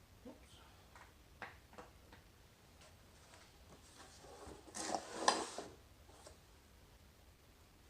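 Scattered light clicks and taps of tools and metal parts being handled as a part is worked off a motorcycle, then a louder clatter with rustling about five seconds in.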